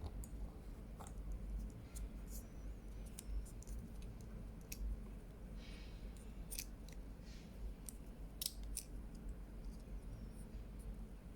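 Small plastic clicks and taps, scattered and irregular, as the pieces of a Honda Vezel key fob are handled and fitted back together after a battery change, over a low steady hum.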